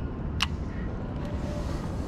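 A steady low rumble, with one sharp click from the baitcasting reel about half a second in and a few faint ticks after it.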